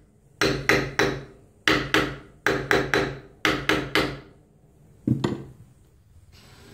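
Claw hammer striking a nail through a wooden cleat held against a brick wall: sharp ringing blows in quick runs of two or three, about three a second, with a single last blow about five seconds in.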